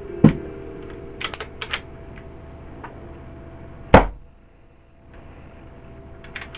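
Brass Eagle Nightmare paintball marker on a 12-gram CO2 cartridge: a few light metallic clicks, then one sharp, loud crack of gas as it is fired, a test of the freshly reassembled valve for seal.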